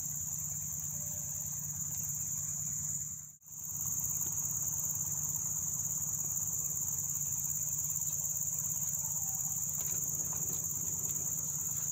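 Steady, high-pitched insect chorus, unbroken except for a brief dropout about three seconds in.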